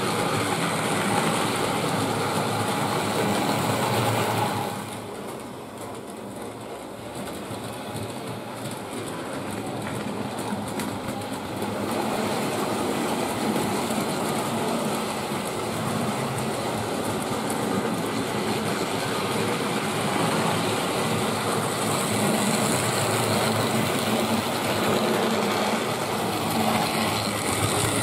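Hornby Dublo three-rail model trains running on loose-laid track: motors whirring and wheels clattering over the rail joints. The noise drops back about five seconds in and swells again from about twelve seconds as a train comes close.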